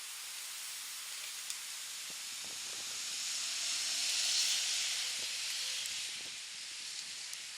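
Steady outdoor hiss that swells for a few seconds around the middle and then fades back, with a few faint light clicks.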